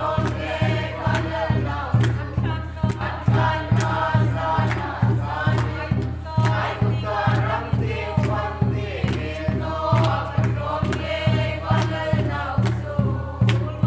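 A group singing a Mizo hymn together in the lengkhawm style, to a steady beat on a large khuang drum at about two and a half strokes a second.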